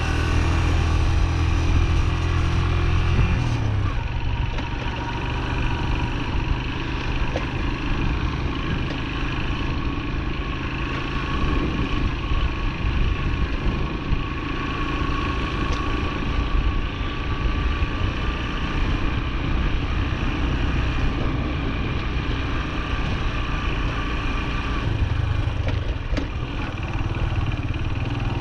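Farm bike engine idling, then pulling away about three and a half seconds in and running at speed. It settles back toward an even idle near the end.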